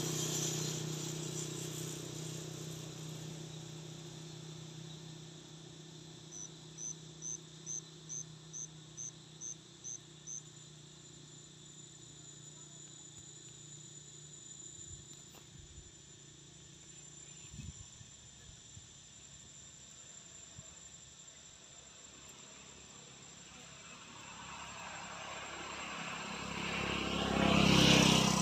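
A motor vehicle on the road fades away at the start, and another approaches and passes close near the end; that second pass is the loudest sound. In between, a run of about ten short, high chirps comes at roughly two and a half a second, over a faint steady high whine.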